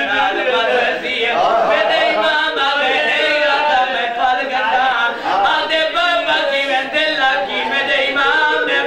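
A man's voice chanting a mourning recitation without a break, sung and drawn out in a rising and falling melody rather than spoken.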